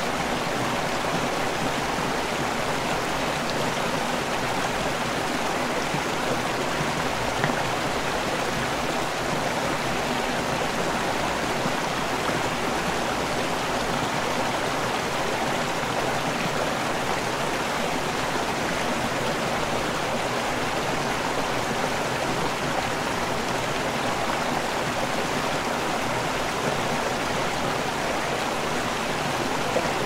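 A running river: water flowing with a steady, unbroken rush and babble.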